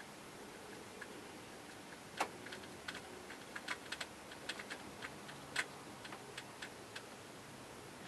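Felt-tip marker writing on a whiteboard: an irregular string of light clicks and taps as the tip strikes the board stroke by stroke, starting about two seconds in and dying away about seven seconds in, with two louder taps, one near the start of the writing and one about halfway.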